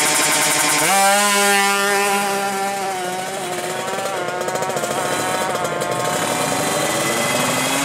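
Tuned two-stroke Kawasaki Ninja 150 drag bike engine revving, then launching about a second in: the note jumps up sharply in pitch and holds high, with small dips, and then falls away in level as the bike pulls off down the strip. A second engine note rises in pitch near the end.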